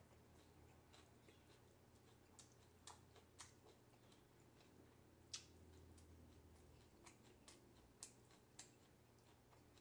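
Faint, scattered clicks of wooden chopsticks tapping against a pan and the food in it as pieces are picked up. About nine ticks come at uneven intervals, the loudest a little past five seconds in, over a quiet low hum.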